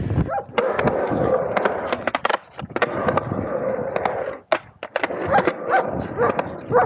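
Skateboard wheels rolling on concrete bowl walls, with many sharp clicks and clacks of the board. The rolling drops out briefly about four and a half seconds in, around a few loud clacks.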